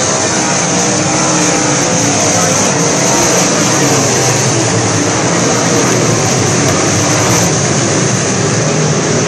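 A pack of sport modified dirt-track race cars running laps together, their V8 engines merging into one loud, steady roar with no letting up.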